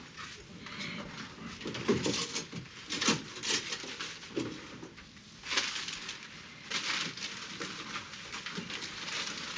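Irregular scraping and rubbing strokes with a few knocks: sticky shoe soles being scraped clean by hand.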